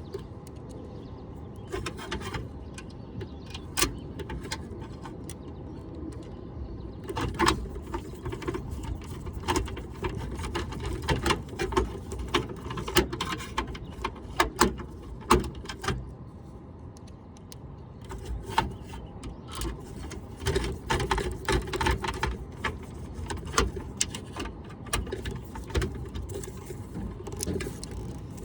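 Scattered clicks, taps and small rattles of hand work on an air conditioner's capacitor and its wire terminals, over a steady low rumble.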